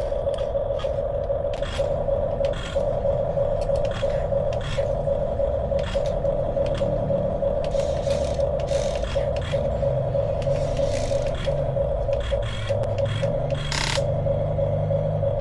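Small electric RC model motor running with a steady high whine, over a low rumble, with scattered clicks and scrapes.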